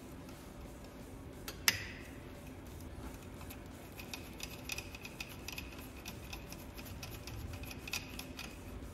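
Hand tool working on the metal cylinder head of a disassembled Yamaha Tricity 300 engine. A single sharp metallic clink comes a little under two seconds in, then quick light clicking from about halfway on.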